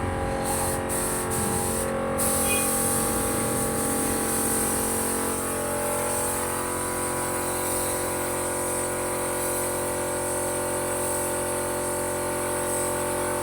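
Air compressor running steadily, with the hiss of a paint spray gun spraying over its hum.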